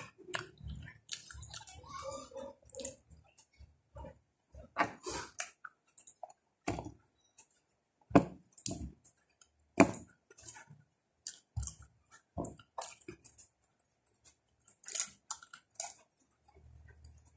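Close-up chewing and wet mouth smacking from eating cooked ripe bananas. There are short, sharp clicks and smacks at irregular intervals, with brief pauses between bites.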